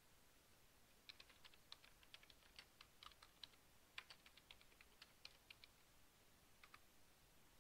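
Bluebird nestlings begging as the adult feeds them: a quick run of faint, high, clicking chips that starts about a second in, thins out, and returns briefly near the end.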